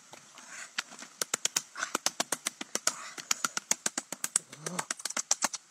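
A rapid, uneven run of sharp taps, about six a second, starting about a second in.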